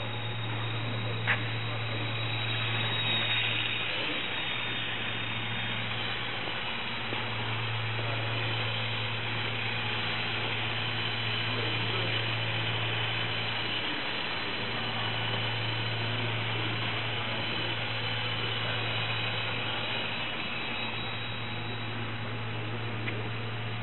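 Small electric motor and propeller of a foam RC autogyro whining steadily in flight, over a low hum that drops out now and then. A single sharp click about a second in.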